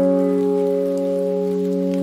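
Background music: a soft sustained chord held steadily, with a few faint plinking notes over it.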